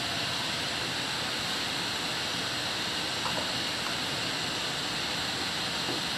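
Heavy typhoon rain pouring down, a dense, steady hiss.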